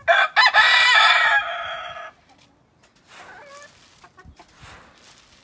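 Rooster crowing once, a loud cock-a-doodle-doo about two seconds long, followed about a second later by fainter short calls.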